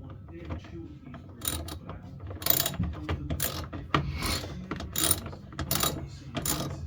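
Socket ratchet wrench clicking through repeated strokes, about one a second, as bolts are run in on a washing machine.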